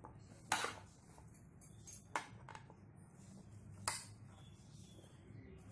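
A metal spoon stirring chopped fruit in a bowl, with a few short sharp clinks of the spoon against the bowl, the loudest about half a second in and about four seconds in.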